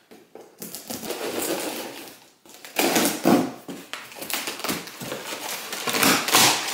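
A box cutter slicing through tape and cardboard on a tall shipping box, with the cardboard flaps scraping and rustling as they are pulled open. It comes as irregular, rapid scratchy strokes, louder from about three seconds in.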